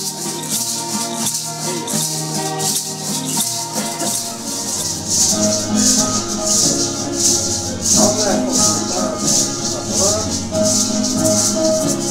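Ceremonial dance music: hand rattles shaken in a steady beat over instruments playing held notes. The rattle strokes grow stronger about halfway through.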